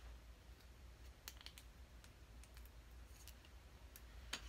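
Near silence with a few faint, scattered clicks and taps from small makeup items, such as an eyeliner pencil, being handled. A low steady hum runs underneath.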